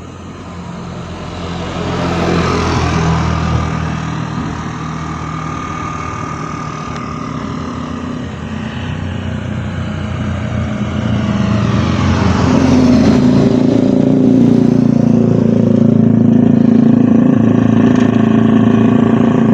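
Road traffic: motor vehicles passing close by. One goes past about two seconds in, and from about twelve seconds in a louder engine with a steady low note dominates.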